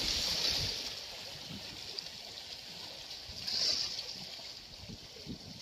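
Seawater washing and splashing among the concrete tetrapods of a breakwater, with a swell of surf about three and a half seconds in.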